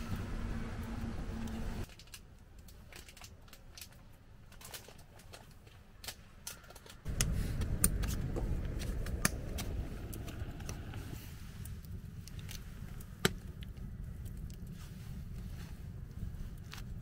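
A knife whittling a wooden stick: short scraping cuts with scattered sharp clicks, over a steady low rumble that comes in about seven seconds in.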